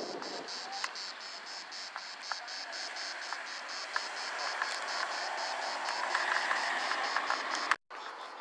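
Cicadas chirping in an even pulsing rhythm, about four pulses a second, over a steady hiss. The sound drops out briefly near the end.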